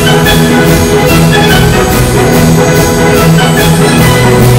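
Loud background music with a steady beat and pitched percussion.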